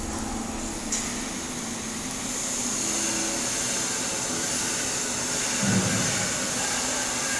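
Stick-welding arc (SMAW with an E7018 rod) burning steadily with a continuous crackling hiss, laying the final cap pass. A brief low thump comes near the end.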